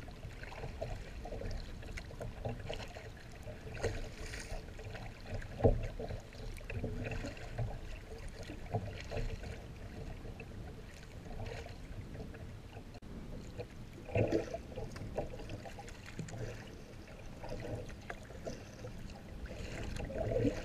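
Water slapping and splashing against a kayak's hull as it moves through choppy water. Irregular louder splashes come through, the strongest about six seconds in and again about fourteen seconds in.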